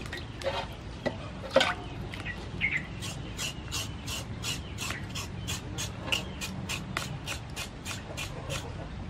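A knife scraping the skin of a raw pork leg to clean it, in quick even strokes about three to four a second over a basin of water. About a second and a half in there is a sharp knock or splash in the water before the scraping starts.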